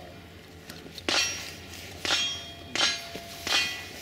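Steel rifle targets clanging as they are struck, four sharp metallic hits in quick succession, each followed by a brief ring.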